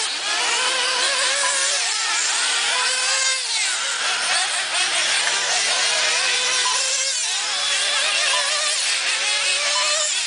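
Several 1/8-scale nitro RC buggy engines buzzing at high revs together, their pitches rising and falling as the cars accelerate and slow.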